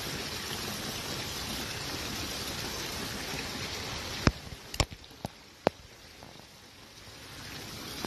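Steady rushing of creek water. About four seconds in, the rushing drops away and four sharp clicks and knocks follow as the spinning reel and rod are handled, before the water noise slowly comes back.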